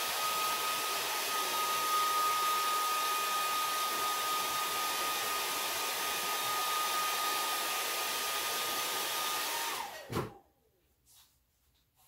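Handheld hair dryer running: a steady rush of air with a steady whine. About ten seconds in it is switched off and the whine falls away as the motor spins down.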